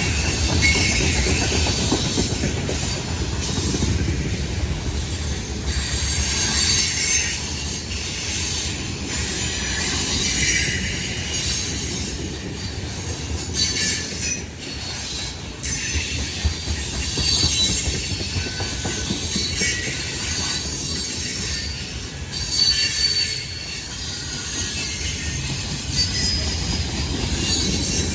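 Freight train cars rolling past: a continuous low rumble of wheels on rail, with repeated short clacks and intermittent high-pitched wheel squeals.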